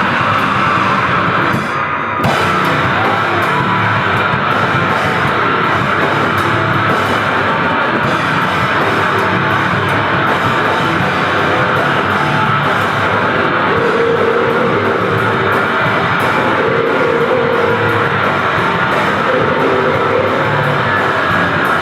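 Grindcore band playing loud and dense: heavily distorted electric guitar, bass and a drum kit. It drops out briefly about two seconds in, then carries on.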